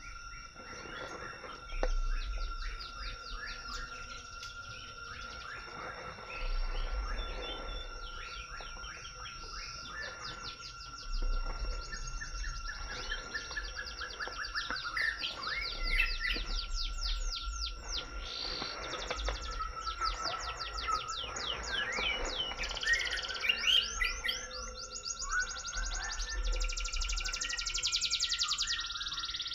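Forest birds chirping in rapid runs of short, falling calls over a steady, high insect drone.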